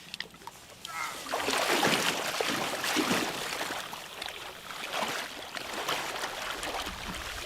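Water splashing and sloshing in an irregular wash, loudest for a couple of seconds near the start.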